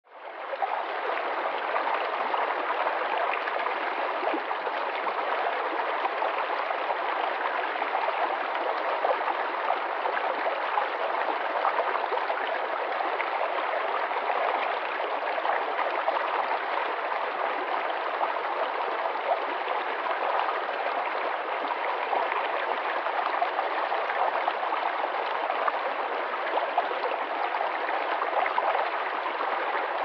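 Shallow rocky stream running over a small riffle: a steady rush and babble of water that fades in at the start.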